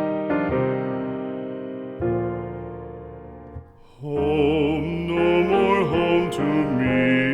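Background music: soft piano chords ring out and fade, then about four seconds in a singing voice with vibrato enters over the accompaniment.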